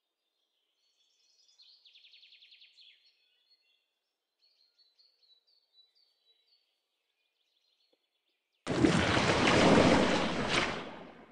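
Faint bird chirps, with a short rapid trill about two seconds in, over near silence. About three-quarters of the way through, a loud rushing swoosh sound effect comes in abruptly for the outro animation and fades out near the end.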